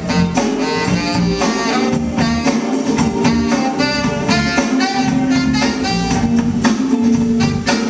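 Live band playing with a steady beat: a saxophone carries the melody over drum kit, electric guitars, keyboard and tambourine.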